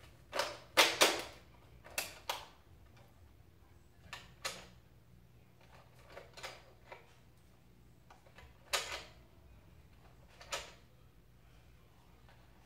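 Nerf Rival Kronos blaster being loaded by hand: a run of sharp plastic clicks and clacks, several in quick pairs, spread irregularly, the loudest about a second in.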